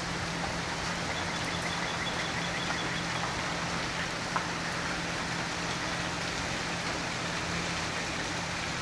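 Steady rain falling on gravel and running water, with a steady low hum underneath. A faint, high, rapid trill sounds briefly about a second and a half in.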